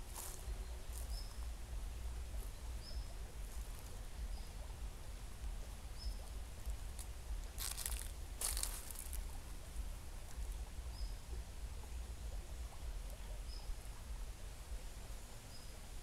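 Quiet ambience of a calm, slow-flowing forest stream with a steady low rumble underneath. A small bird repeats a short high chirp about every second and a half, and two brief rustling noises come just after the middle.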